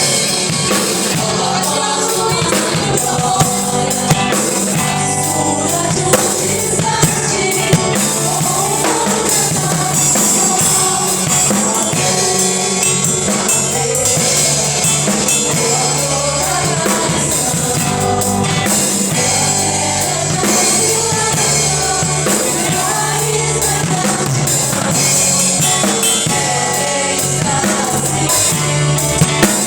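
Live gospel worship music: a band with drum kit and bass playing while voices sing.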